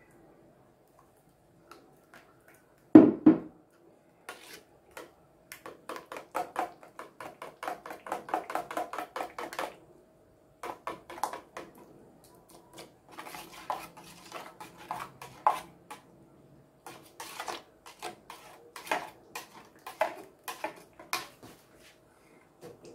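Metal spoon scraping and tapping against a stainless steel conical mesh strainer in runs of quick strokes, working blended beetroot and watermelon juice through the mesh. One loud knock about three seconds in.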